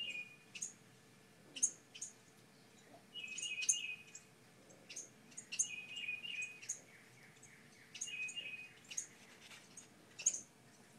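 Wrens calling: repeated sharp, high chips mixed with short buzzy, rattling notes about half a second long.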